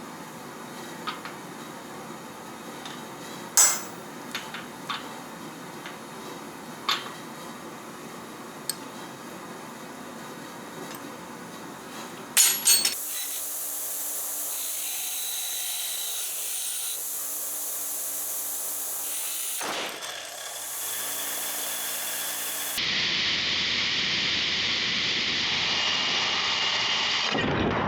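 Scattered metal clinks and light knocks, then about halfway through a power wire wheel starts running with a steady whirr over a low motor hum, and keeps going to the end.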